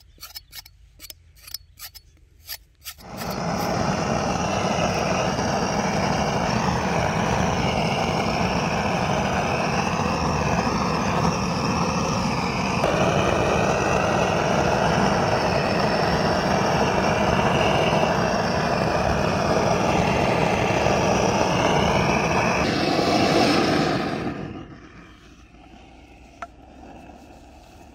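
A few quick scraping strokes on a beef trotter, then a gas blowtorch burning with a loud, steady hiss as its flame is played over the trotter to heat and singe it for cleaning. The flame cuts out about 24 seconds in.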